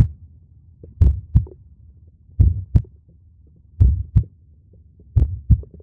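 Slow heartbeat: pairs of low thumps, a double beat repeating about every 1.4 seconds, four pairs in all.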